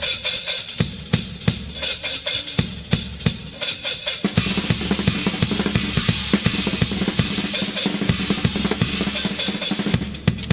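Live rock drum solo on a full drum kit: bass drum and snare hits with rimshots. About four seconds in it breaks into a fast, almost continuous run of strokes.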